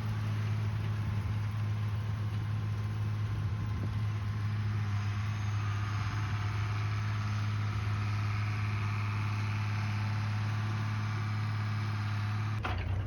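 Farm tractor engine running steadily with a constant low hum, working a hay tedder in the field.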